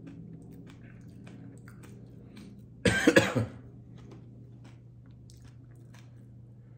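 A man coughs once, hard, about three seconds in, for about half a second. He is queasy from the heat of a super-hot chili chip.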